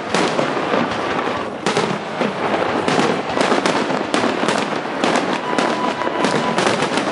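Fireworks display: many aerial shells bursting in quick succession, a dense, unbroken run of bangs and crackling.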